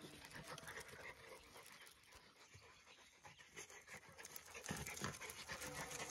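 Two small terriers panting faintly as they wrestle and play together.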